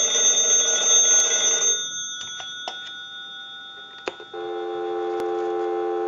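Bells of a 634 metal telephone bell box ringing for about two seconds on a ring cycle, then fading. A few clicks follow as the candlestick receiver is lifted off the hook, and a little over four seconds in a steady dial tone starts, heard through an amplified pickup.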